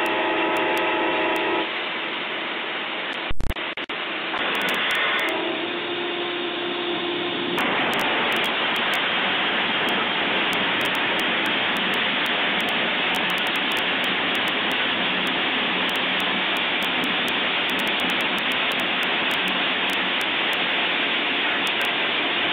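Locomotive horn blowing a multi-tone chord, cut off by a single loud crash about three seconds in as the train strikes a log truck. The horn sounds again briefly, then a steady loud rushing noise fills the rest.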